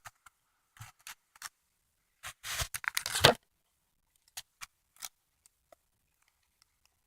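Plastic packaging crinkling and rustling as it is handled and opened, in one loud burst lasting about a second, starting around two seconds in, with a few small clicks and ticks around it.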